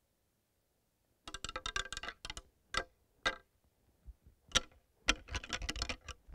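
Rattling antlers clacking and grinding together: a quick flurry of clicks, a few single knocks, then another flurry. It is a rattling sequence that imitates bucks fighting, to draw in a whitetail buck.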